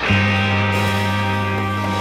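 Background music: a low chord comes in sharply and is held steady.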